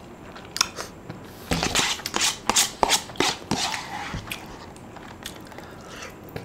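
Close-up eating sounds: a person chewing and biting food, with a flurry of short clicks and crunches for about two seconds in the middle and scattered ones after.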